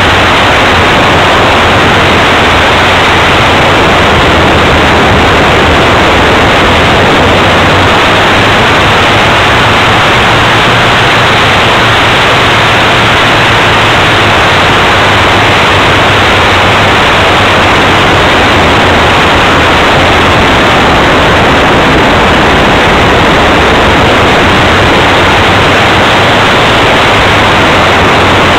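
Wind rush and engine noise of a Vmar RV-4 RC model plane in flight, picked up by a small camera on its wing: a loud, steady hiss-like rush with a faint low hum underneath.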